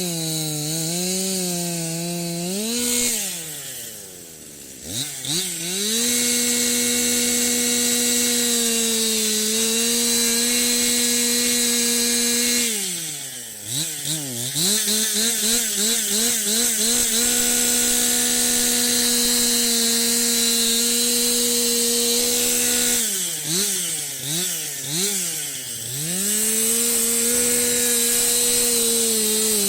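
Chainsaw engine running at high revs, twice dropping back toward idle and then blipped up and down in quick throttle bursts before climbing back to a steady high rev.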